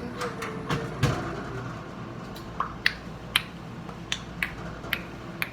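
A dozen or so sharp, irregular clicks with a few dull knocks in the first second.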